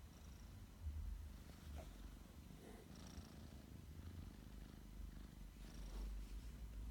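Sleeping cat snoring softly: a low, pulsing rumble with a faint short high whistle about every three seconds.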